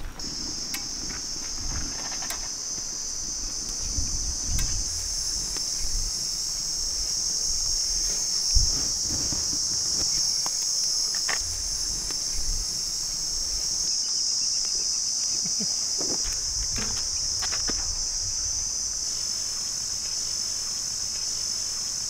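A steady, high-pitched drone of insects, with a few soft knocks and taps from the aluminium pot being handled.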